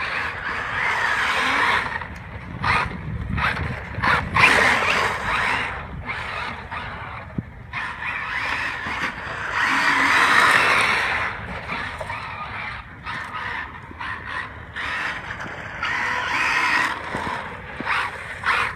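Radio-controlled Carisma M48 Porsche 959 driving on snowy pavement, its motor and drivetrain whining in repeated surges of a few seconds each as the throttle is worked, with tyre noise through snow and slush. The gear mesh sounds a bit off to the owner.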